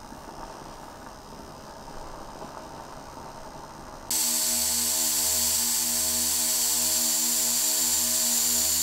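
Quiet room tone, then about four seconds in a small electric appliance switches on abruptly and runs steadily: a motor hum under a strong hiss.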